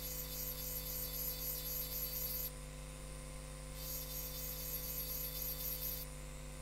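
Handheld rotary engraving tool with a small burr grinding into the wet surface of a wine glass: a high hiss in two stretches, broken for about a second partway through and stopping shortly before the end, over the steady hum of the tool's motor.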